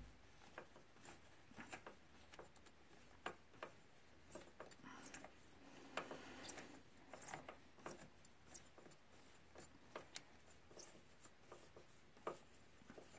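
Faint, irregular clicks and rubs of a metal spark plug socket and extension being worked onto a spark plug past hoses and the frame, with the engine off; otherwise near silence.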